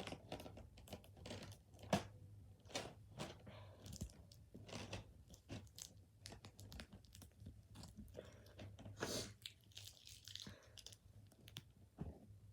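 Tape being peeled off small plastic toy parts and packaging handled: faint, irregular crackles, rustles and clicks, with a longer tearing rustle about nine seconds in.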